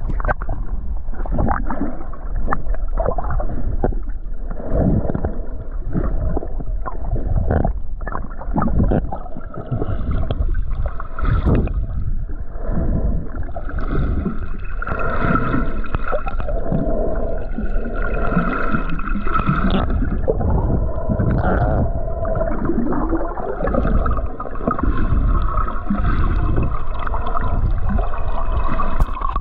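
Muffled water sound from a submerged camera: gurgling and surging water over a low rumble. From about halfway, a faint steady whine runs through it.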